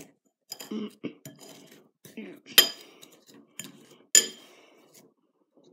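A spoon stirring sugar-coated cookie pieces in a ceramic bowl: short scrapes and taps against the bowl, with two sharp, ringing clinks about two and a half and four seconds in.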